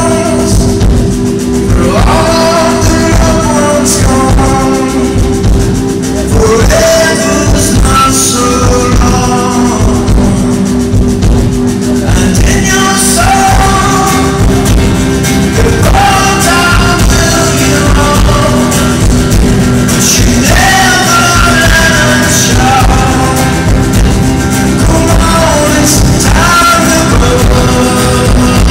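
Live band playing in a theatre, heard loud from the audience: a male lead voice sings a melody that rises and falls over drums and upright bass.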